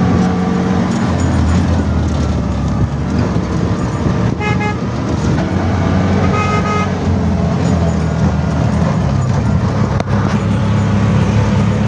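Auto rickshaw engine running steadily as the three-wheeler drives along, with two short horn toots at about four and a half and six and a half seconds in.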